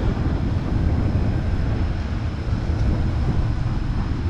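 Wind buffeting the microphone: a steady, uneven low rumble with no other clear sound standing out.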